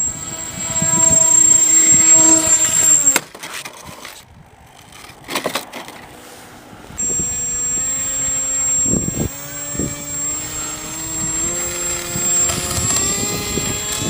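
Propeller motor of a homemade RC model plane running with a steady whine, cutting off abruptly about three seconds in. After a quieter stretch with a brief burst of noise, the motor comes back on about seven seconds in and its pitch climbs slowly.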